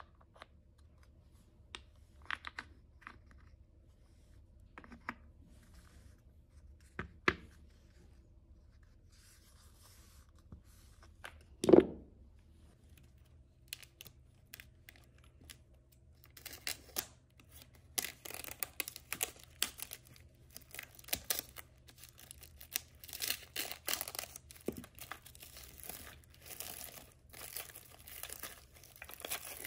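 Packaging being handled and torn open: scattered clicks and knocks, with one loud thump about twelve seconds in, then from about sixteen seconds on continuous crinkling and tearing of the wrapping.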